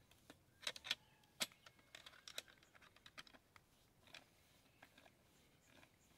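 Faint, irregular light clicks and taps of small parts and tools being handled on a brush cutter engine under repair, with a few sharper clicks in the first two and a half seconds.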